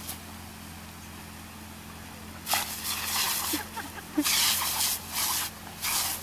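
Lawn sprinkler water jet hissing and spattering in a run of bursts as a German Shepherd puppy bites and snaps at the spray, starting about two and a half seconds in.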